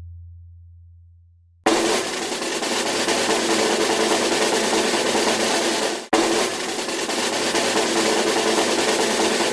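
A low boom fades away, then a snare drum roll starts abruptly about two seconds in. The roll breaks off sharply about six seconds in and starts straight up again.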